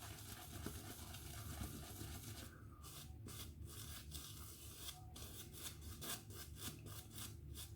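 Damp synthetic-knot shaving brush working shaving soap into a lather, a soft rubbing swish at about three strokes a second from about two and a half seconds in.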